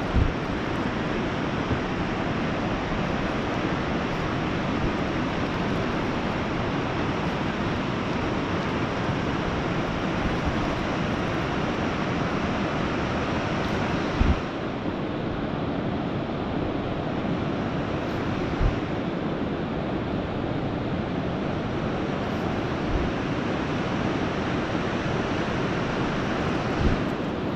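Steady rushing noise on the open river, with a few brief knocks; the hiss softens slightly about halfway through.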